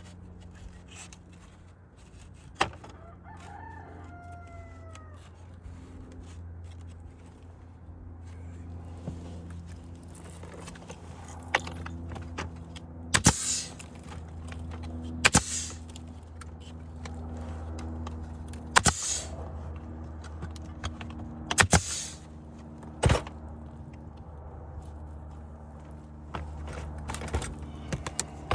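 A dozen or so sharp, separate knocks a second or more apart, from work securing wooden roof shakes. A rooster crows once, a few seconds in.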